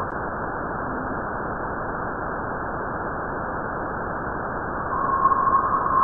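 Sonified spacecraft plasma-wave recording of interstellar space: a steady hiss, with a single steady tone fading in and growing louder about five seconds in.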